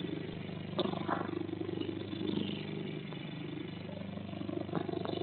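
A steady low hum, engine-like, with a couple of brief sharp noises about a second in.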